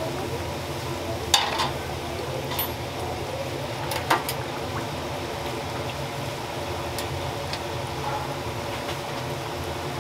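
Hot oil sizzling and bubbling steadily in a commercial deep fryer as glutinous-rice donuts fry. A few sharp knocks break through, about a second and a half in and again around four seconds, over a low steady hum.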